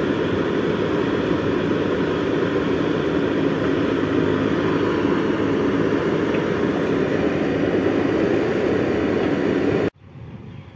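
JCB 3DX backhoe loader's diesel engine running steadily under load while the backhoe digs soil close by. Near the end the sound drops abruptly to a much fainter, more distant machine sound.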